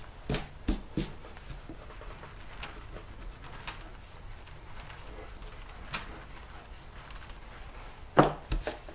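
A large rubber eraser rubbing over paper, faint, with a few light taps in the first second and a louder rustle near the end.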